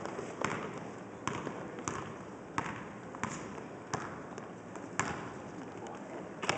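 Basketball dribbled on a hardwood gym floor: a string of sharp bounces, roughly one every two-thirds of a second.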